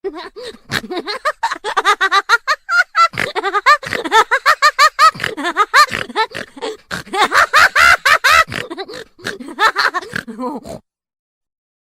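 Cartoon character's high-pitched laugh, a long run of quick chattering syllables that stops abruptly near the end.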